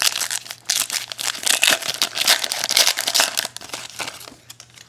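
Foil wrapper of a trading-card pack crinkling as it is torn open and peeled off the cards: a dense run of crackling that dies away about four seconds in.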